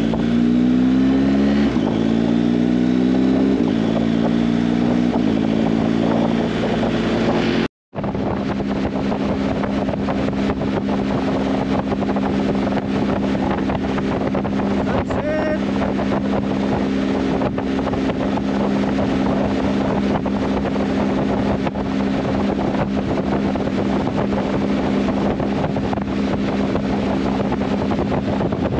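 Motorcycle engine accelerating through several upshifts, its pitch climbing and dropping back at each gear change. After a brief cut it runs at a steady cruising speed, with wind rushing over the microphone.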